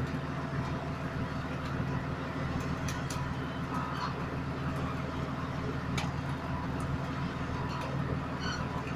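Road roller's engine running steadily under load as the machine climbs slowly up steel loading ramps, with a few sharp clicks about three seconds in and again around six seconds.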